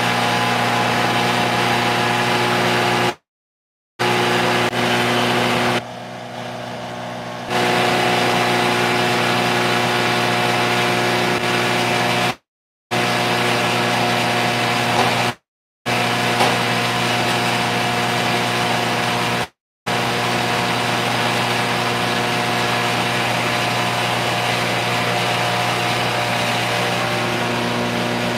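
Areca nut husk (supari chilka) grinding machine running steadily while husks are fed into it: a constant mechanical hum and whine with a rushing hiss. The sound cuts out abruptly to silence several times for a fraction of a second.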